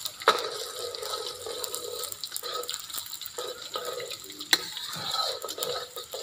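Garlic and anchovies sizzling in hot oil in a wok, with a metal spatula scraping through and now and then knocking sharply against the wok as it stirs.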